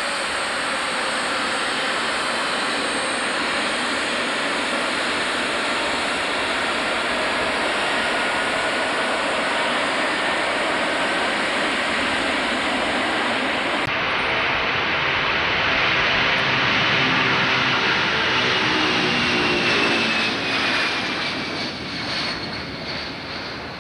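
Boeing 747-100's four Pratt & Whitney JT9D turbofans: a steady jet whine as the airliner taxis past close by. About 14 seconds in the sound changes abruptly to the louder rush of takeoff power, which swells and then fades, with a whine falling in pitch, as the jet rolls past and lifts off.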